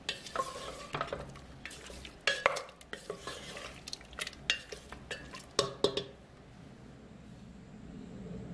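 A spatula stirring pieces of cooked beef in a thick masala in a stainless-steel pot, with wet squelches and sharp knocks and scrapes against the metal sides. The stirring stops about six seconds in.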